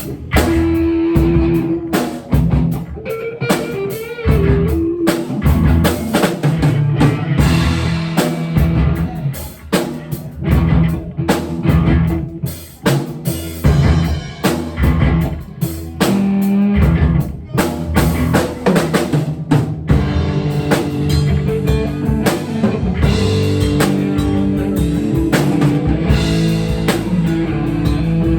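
Music played on a drum kit and guitar, with frequent drum hits over held bass and guitar notes.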